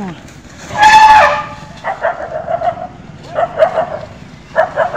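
Puppies barking and yapping in short clusters, with one loud, drawn-out high cry about a second in.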